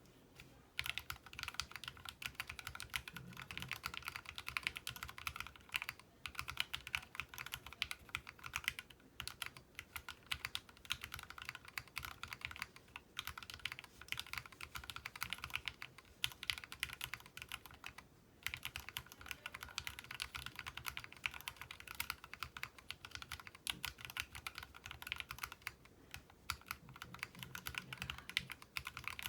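Continuous typing on a Reviung 41 mechanical keyboard fitted with hand-lubed, Durock-filmed Gateron X linear switches and lubed screw-in stabilizers, dampened by silicone sheets, a tape mod and Poron switch stickers. Keystrokes come in dense runs with a few short pauses.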